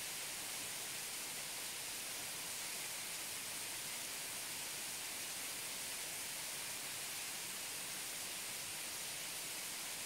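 Waterfall: water falling and splashing in a steady, even hissing rush, with little low rumble.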